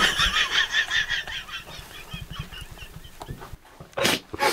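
High-pitched, wheezing laughter in fast pulses, fading out over about two seconds, with another short burst of it near the end.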